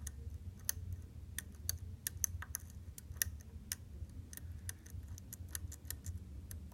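Lock pick working the pins of a Medeco Duracam lock under tension: irregular light metallic clicks, several a second, as the high pins are forced. A low steady hum runs underneath.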